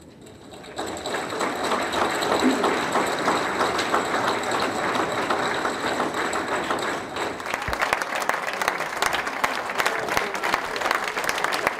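An audience breaks into applause about a second in and keeps clapping; the individual claps become sharper and more distinct in the last few seconds.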